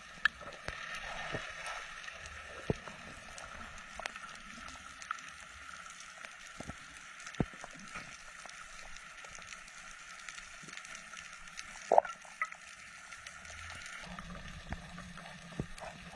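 Water sounds recorded during a spearfishing dive: a steady hiss with scattered sharp clicks and pops, the loudest about twelve seconds in.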